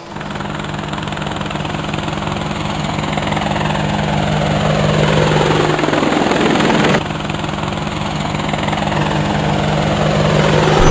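Quadcopter drone's propellers whirring in a steady hum, with a falling sweep that cuts off suddenly about seven seconds in.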